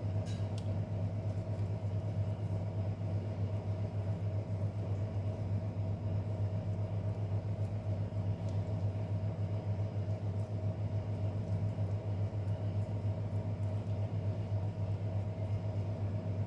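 Steady low electric hum with a fast, even flutter, unchanging throughout, like a small appliance motor running.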